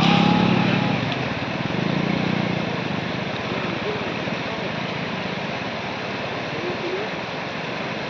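A motor vehicle's engine running, loudest in the first second with a low hum and a few held tones, then giving way to a steady rushing noise.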